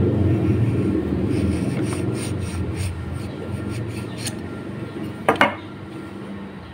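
Low rumble of a passing vehicle that fades away over several seconds, with a short clatter about five seconds in.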